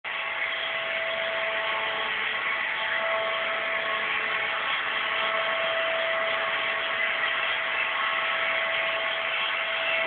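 Euroflex Monster robot vacuum cleaner running as it drives across the floor: a steady motor noise with a high whine over it.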